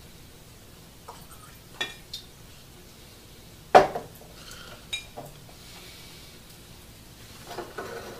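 Glass liquor bottles knocking and clinking as they are handled and put down on a wooden table, with one loud knock about four seconds in as a bottle is set down and a cluster of small clicks near the end.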